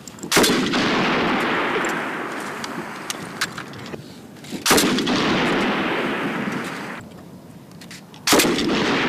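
M249 light machine gun firing three times, about four seconds apart, each report followed by a long rolling echo that fades away over several seconds; fainter sharp cracks sound in between.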